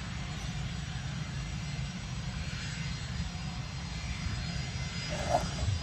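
Distant jet airliner engines running, a steady whine with several high tones over a low rumble.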